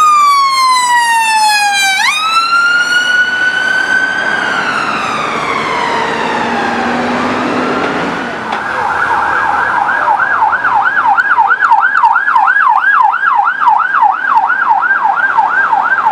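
Emergency vehicle sirens. First an ambulance siren in a slow wail, rising and falling over several seconds. From about halfway, a police van siren in a fast yelp, sweeping up and down about three times a second.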